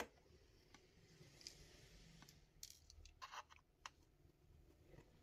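Faint, scattered clicks and light scrapes of a small screwdriver working the screws out of a laptop's bottom cover.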